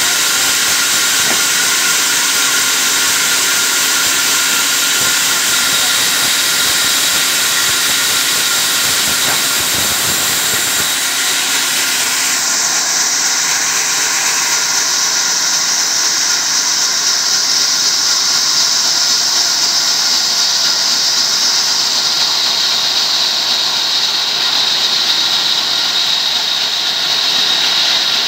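Sawmill band saw running and ripping a thick timber beam lengthwise: a steady, loud whine and hiss of the blade cutting through the wood. The sound shifts in character about midway through the cut.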